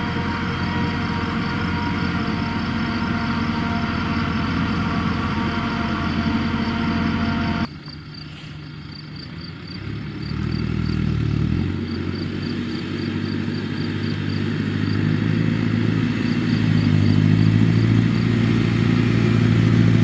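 Massey Ferguson tractor's diesel engine running as it pulls a slurry tanker, with a fast, regular high ticking over it. The sound drops off sharply about eight seconds in, then the engine grows louder again as the tractor comes closer.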